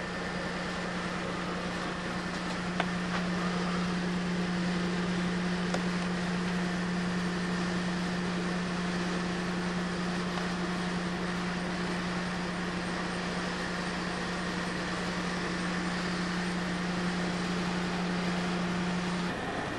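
A steady, unchanging machine hum over a broad hiss, with a couple of faint clicks; it cuts off shortly before the end.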